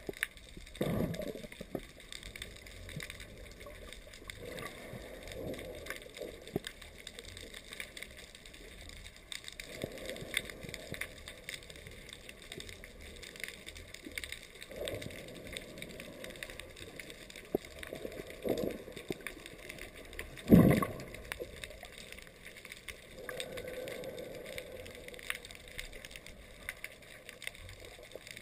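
Water sloshing and gurgling around a camera held just under the surface, coming in irregular surges. A sharp knock about twenty seconds in is the loudest moment.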